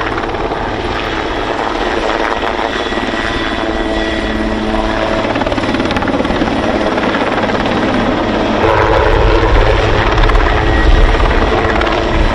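Military attack helicopter flying and manoeuvring in a display, its rotor and engine noise steady, then growing louder about nine seconds in.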